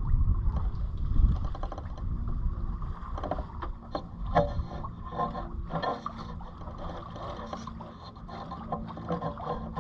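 Catalina 27 sailboat under way in light, gusty wind: wind rumbling on the microphone, heaviest in the first second or so, with irregular splashes and clicks of water along the hull.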